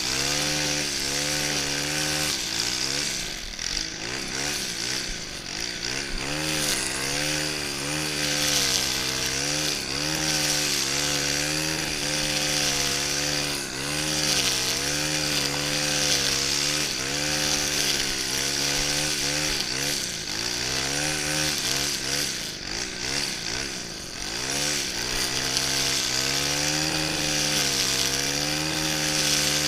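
Stihl FS 131 brushcutter's 36cc engine running at high speed while cutting grass. Its pitch keeps dipping and recovering as the cutting head meets the grass, over a steady high hiss from the cutting.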